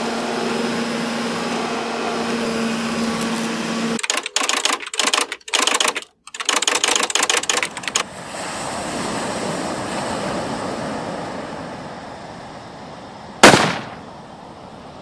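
Sound effects of a speeding cartoon time-travel car: a steady humming drone, then about four seconds of choppy, stuttering crackle, then a rushing noise that swells and fades, and a single sharp bang near the end.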